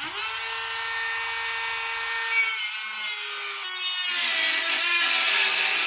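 High-speed rotary tool whining as it spins up, then cutting into Camaro plastic: about two seconds in its pitch sags under load and a harsh, gritty hiss from the cut joins the whine.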